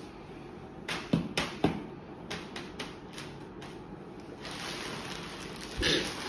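Plastic bag being handled, crinkling: a few sharp crackles and clicks, then a steadier rustle from about four and a half seconds in, with one loud crinkle near the end as the bag is lifted.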